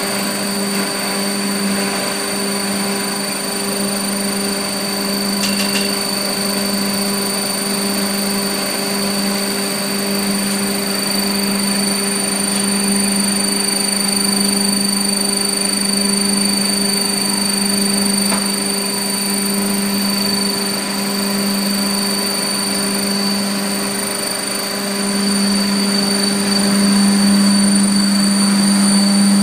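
Hammer mill and its electric drive motor running steadily while crushing tree bark into sawdust-like powder: a continuous loud drone with a low hum and a thin high whine over it. It grows louder about 25 seconds in.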